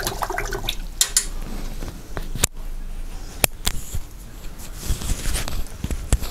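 Scattered sharp clicks and taps with light scratching, from painting tools being handled; the taps bunch together near the end.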